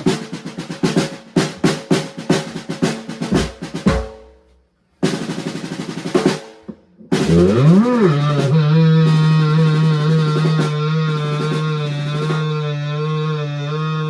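Rapid snare drum strikes and rolls, stopping briefly twice. They are followed by a loud sustained pitched tone that slides up at its start, then holds steady with a wavering upper part until it cuts off near the end.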